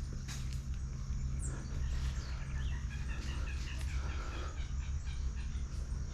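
Birds chirping faintly over a steady low rumble, with a few faint sharp clicks.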